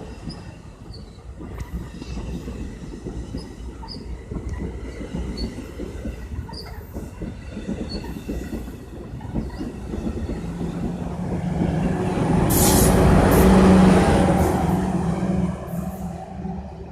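NJ Transit commuter train rolling through, its wheels rumbling and clacking on the rails. It grows louder to a peak about thirteen to fourteen seconds in, with a steady engine drone under it, then eases off.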